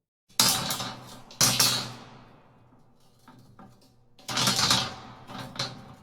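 Iron crash sound effect: a series of heavy metal impacts with ringing tails. Two sharp hits come in the first two seconds, then a couple of light knocks, then a longer crash about four seconds in, followed by smaller hits.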